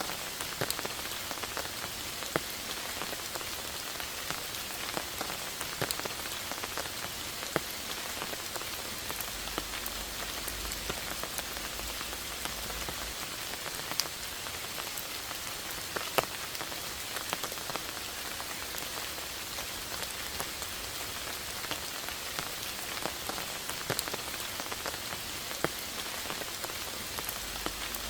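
Steady rain falling, an even hiss with many distinct single drop hits, a few of them noticeably louder.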